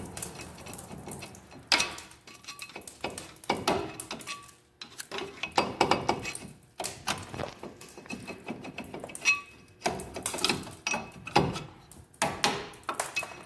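Screwdriver prying and scraping a front brake pad out of the caliper bracket of a 2009 Mazda 3: irregular metal clicks, taps and scrapes, in clusters every second or two.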